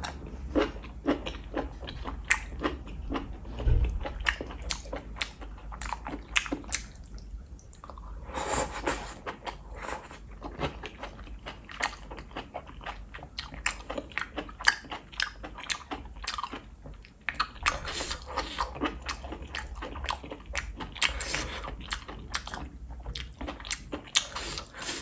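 A person chewing saucy cooked enoki and oyster mushrooms, with many quick, irregular wet mouth clicks and smacks.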